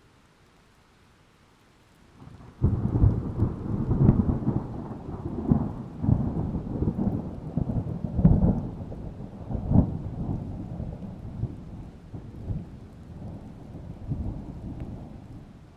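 Thunder: a sudden loud crack about two and a half seconds in, rolling into a long, low rumble that slowly dies away.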